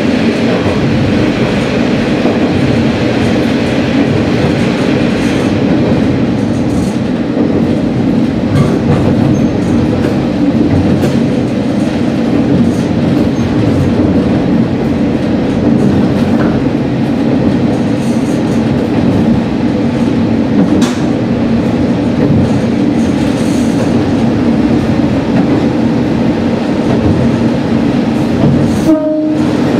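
Sanriku Railway diesel railcar running along the line, heard from the cab: a steady engine drone under the rumble of the wheels on the rails, with scattered clicks. The sound cuts out briefly near the end.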